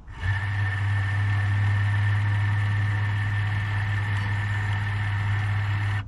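Raymarine ST1000 tiller pilot's electric motor driving its push rod to move the tiller, answering a command from the remote-control phone app: a steady motor hum with a high whine, starting about a quarter second in and cutting off sharply at the end.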